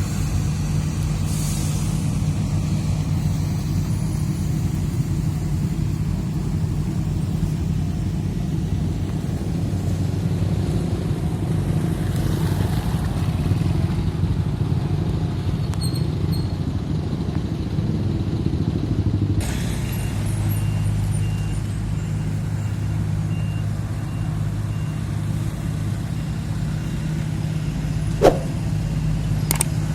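Heavy diesel road-paving machinery running steadily at an even engine speed, with a short sharp squeak near the end.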